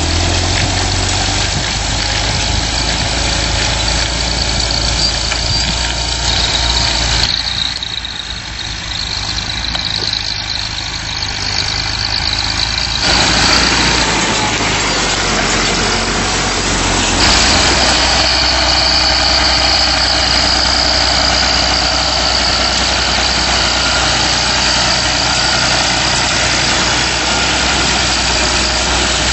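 Steyr 8100 tractor engine running steadily under load while pulling a mounted disc plough through soil, with a dense rushing noise over the low engine drone. The sound shifts abruptly about 7, 13 and 17 seconds in.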